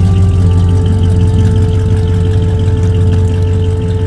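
Classic Plymouth hardtop's engine running at low revs through its exhaust as the car pulls away, growing slightly fainter near the end.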